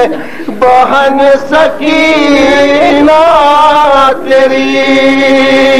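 A man's voice chanting a Shia mourning lament into a microphone, in long held, wavering lines with short breaths between phrases near the start and about four seconds in.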